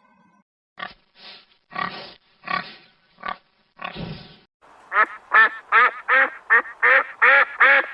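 A pig grunting in about six short, rough bursts, then, from about five seconds in, a duck quacking rapidly, about ten quacks at roughly three a second.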